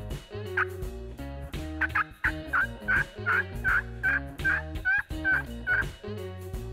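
Turkey calling: one note about half a second in, then a run of about a dozen short, slightly falling notes at roughly three a second from about two seconds in until near the end.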